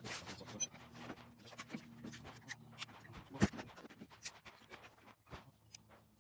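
Small scattered clicks and taps of Glock pistol parts being handled as a flat trigger is fitted, with one sharper knock about three and a half seconds in.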